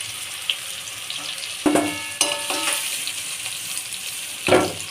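Pumpkin and potato pieces sizzling in hot oil in a kadai, with a spatula knocking and scraping against the pan a few times, two of the knocks ringing briefly, as the fried pieces are lifted out.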